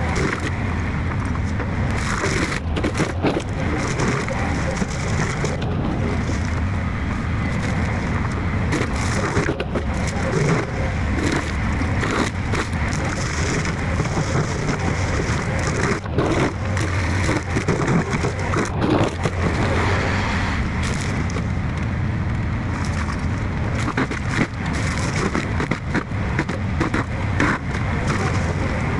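Heavy equipment diesel engine running steadily under load, with frequent sharp cracks and snaps of wood splintering and breaking as trees are torn out and chopped up.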